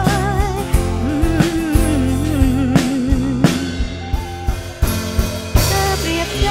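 Live band playing an instrumental passage of a slow Thai pop song: drum kit, bass and acoustic guitar, with a wavering melody line with vibrato over them and several drum hits.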